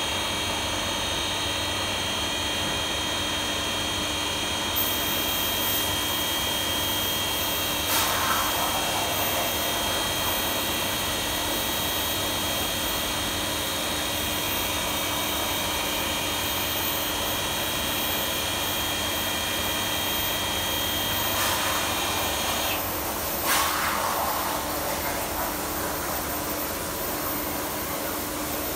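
Brother 217 CNC tapping center running on a test cycle: a steady mechanical hum with several high, even whines, broken by a few sharp clunks. The higher whine cuts off about 23 seconds in, just before the loudest clunk.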